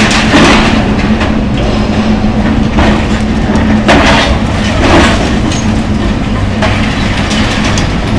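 John Deere excavator's diesel engine running steadily under load, with rough clattering of demolition debris and a few sudden crashes of material falling or being broken.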